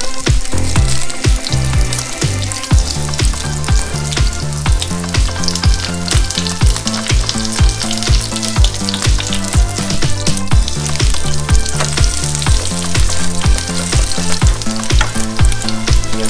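Wild garlic pancakes frying in avocado oil in a nonstick skillet: a steady sizzle throughout. Background music with a steady beat plays underneath.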